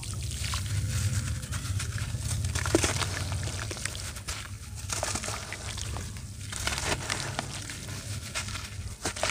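A lump of red dirt being crumbled by hand over a basin of water: irregular crackles and crunches as it breaks apart and bits drop into the water, over a steady low hum.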